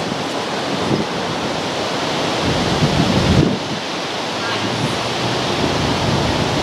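Wind buffeting the microphone: a steady rushing noise with irregular low rumbling gusts, strongest a little before the middle.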